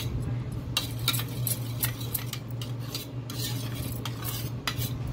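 A metal spoon stirring honey into herbal leaf juice, clinking against the sides of the container in quick, irregular taps.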